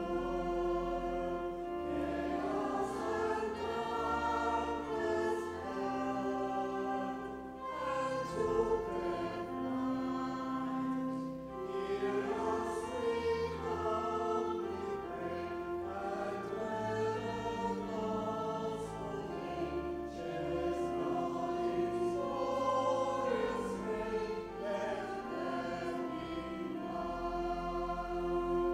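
A choir singing a hymn in long held notes.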